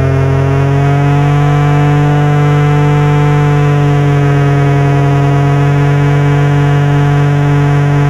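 Ventilathesizer: a spinning ventilation fan's blades chop a light falling on a small solar cell, and the amplified signal sounds as a loud, steady electronic drone. Its pitch, held nearly level here, is set by the fan's speed and the number of blades.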